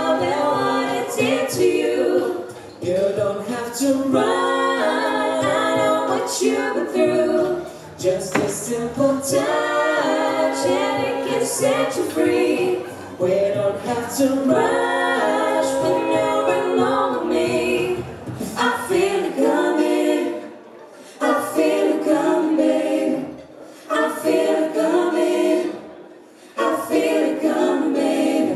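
A cappella group of six voices singing in harmony through microphones and stage speakers, without instruments. About two-thirds of the way in the low part drops away and the singing breaks into short phrases with brief pauses between them.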